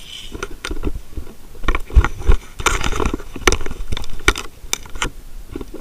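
Choppy seawater sloshing and slapping around a waterproof camera at the waterline beside a rusted steel hull, a run of irregular sharp knocks and splashes as the waves jostle it.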